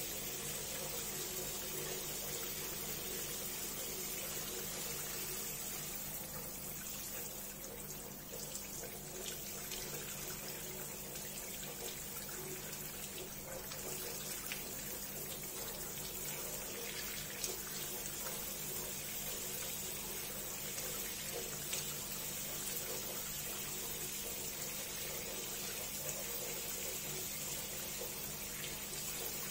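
Steady running water, as from a tap left running, over a steady low hum.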